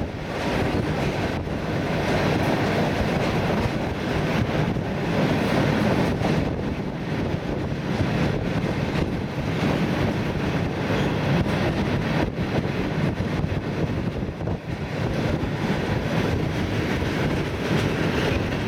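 ER9T electric multiple unit running at speed: a steady rumble of wheels on the track, with occasional clacks over rail joints.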